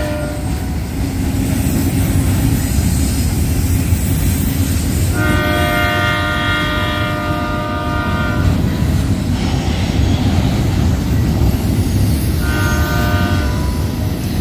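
Union Pacific double-stack container train rolling past with a steady low rumble of wheels on rail. The locomotive's horn sounds one long blast about five seconds in and a short one near the end.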